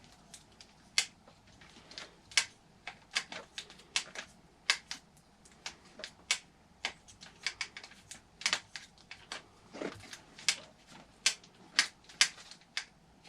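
Irregular sharp metallic clicks and taps of small hand tools and hardware, about one to two a second, as a bolt is fitted to hold the engine in an RC truck chassis.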